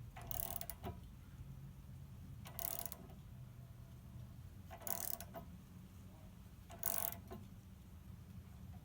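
A socket wrench on the screw of a press forcing out a keel bolt, giving four short bursts of ratcheting clicks about two seconds apart.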